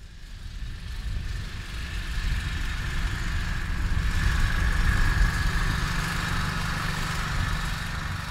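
Engine of a small farm utility vehicle running steadily, fading in over the first couple of seconds, with a faint steady higher-pitched tone above the low rumble.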